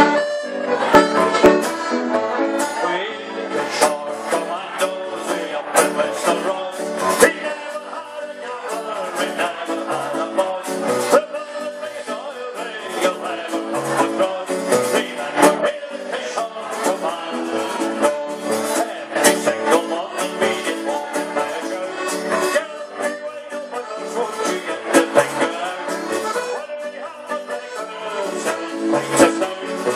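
Live Scottish ceilidh band playing a lively dance tune on accordion and guitar over a steady beat.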